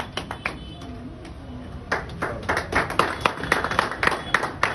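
Audience clapping, sharp separate claps several a second; the clapping dies down about half a second in and picks up again about two seconds in.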